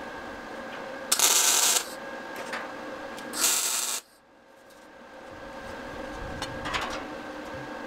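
Wire-feed (MIG-type) welder laying two short tack welds on the steel tubing of the frame, each a loud hiss lasting well under a second, about two seconds apart, over a steady faint hum.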